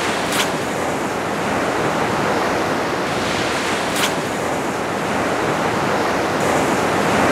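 Ocean surf breaking and washing up the beach, a steady rush, with wind on the microphone. Two brief clicks stand out, one about half a second in and one about four seconds in.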